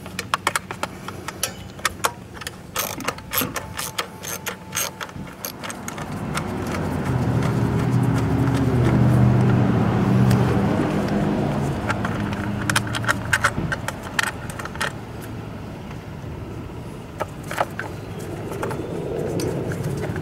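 Hand tools clicking and clinking on metal as the fasteners are worked out of a GY6 scooter's plastic fan cover. A motor vehicle engine swells and fades through the middle, loudest about nine seconds in.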